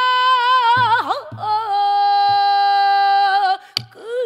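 Female pansori singer holding long sustained notes with a wide wavering vibrato, shifting pitch about a second in and then holding a lower note. A few low strokes on the buk barrel drum sound beneath her voice, and a sharp click comes near the end before she sings on.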